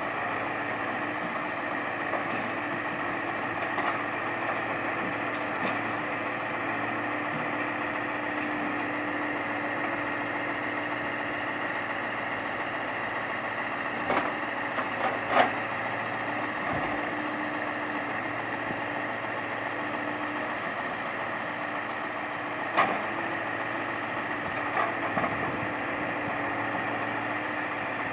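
Scania timber truck's diesel engine running steadily while it drives the loader crane unloading oak logs. A few sharp knocks of logs and crane sound about halfway and again near the end, the loudest a little after halfway.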